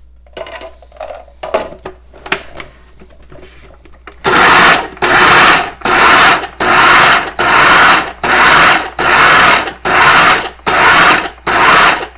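An old Robot Coupe food processor pulsed about ten times, roughly once a second, each burst of its motor starting and stopping sharply as it chops roasted tomatoes and vegetables into salsa. Before that, a few light clicks and knocks as its lid is fitted.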